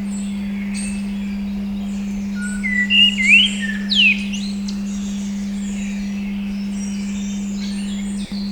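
A steady 200 Hz pure tone under a recording of birdsong, with many small chirps and a few louder whistled calls that swoop up and down about three to four seconds in. The tone briefly cuts out near the end.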